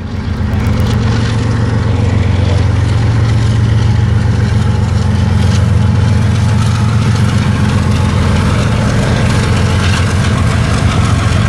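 Two diesel freight locomotives passing, a Norfolk Southern unit leading a CSX unit: a loud, steady low engine drone over a hiss of wheels on rail. The sound rises in quickly at the start.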